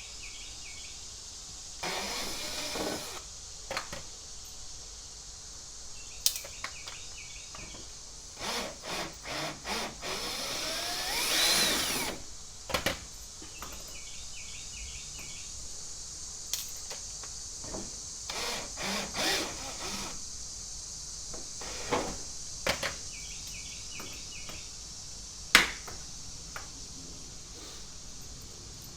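Power drill with a step bit drilling a hole through a car bumper, run in several short bursts and pulses of the trigger, with a rising whine about eleven seconds in as it speeds up. A few sharp clicks and one loud knock come near the end.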